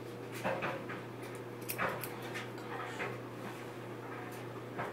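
Haircutting scissors snipping through hair, a handful of short, irregular snips.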